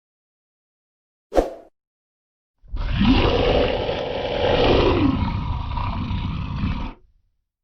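A sharp single knock about a second in, then a monster growl sound effect of about four seconds: rough and loud, its pitch rising near the start and falling again later, cut off abruptly.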